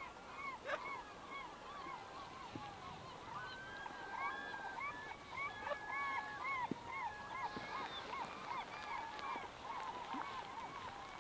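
A flock of birds calling over one another: many short arched calls repeating quickly, busiest in the middle.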